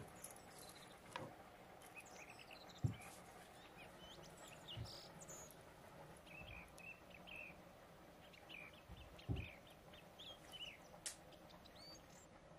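Faint birdsong: scattered short chirps and whistles from several small birds, with a few soft knocks in between.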